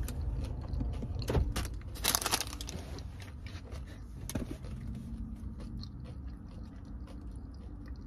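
Paper takeout bag crinkling in a few short bursts as food is taken from it, strongest in the first half, over a steady low rumble inside the car.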